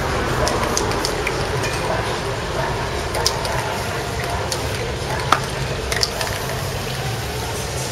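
Aerosol spray paint can hissing as paint is sprayed onto a canvas, with a few sharp clicks.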